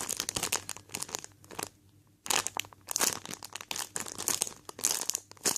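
Crinkling plastic, a squishy toy's packaging bag being handled and squeezed, in irregular crackles with a short pause about two seconds in.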